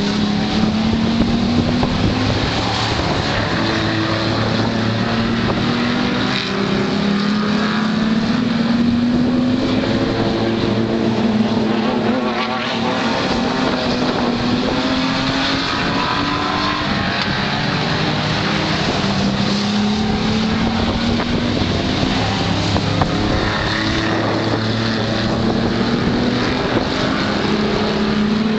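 Super banger racing cars, usually with 3-litre engines, running around an oval track; their engine notes climb in pitch again and again as they accelerate, over a steady noisy din.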